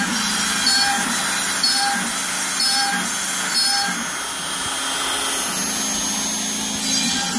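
A Makita trim router on a Shapeoko CNC runs at speed with a high whine while its bit mills holes into an MDF waste board. Short tones repeat about once a second as the machine works from cut to cut.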